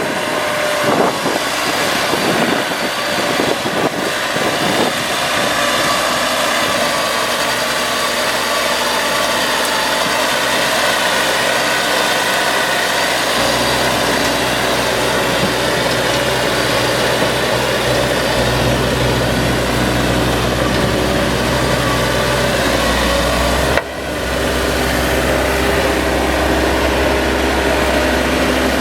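Bobcat T190 skid steer's turbo diesel engine running steadily, with a few clanks in the first several seconds. Its low rumble grows stronger about halfway through.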